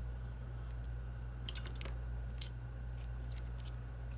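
Small, sharp clicks and taps of a repair tool against an iPhone 7 Plus's internal parts as its bottom connectors are fitted: a quick cluster about halfway in, then a few single ones. A steady low hum runs underneath.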